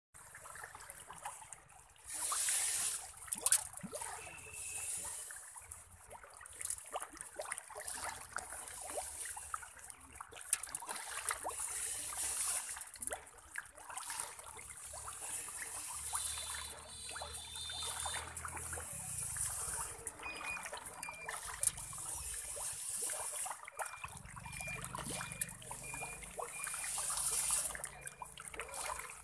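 A crowd of tilapia splashing and churning at the water surface while feeding: a steady, dense run of small splashes and slaps, swelling louder now and then.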